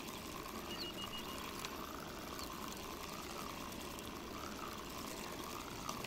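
Spinning reel being cranked steadily to bring in a hooked crucian carp, a faint whirr that swells and fades evenly, about one and a half times a second.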